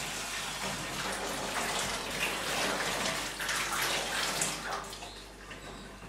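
Tap water running into a plastic bucket of seed, filling it until the seed floats. The flow is steady and dies down about five seconds in.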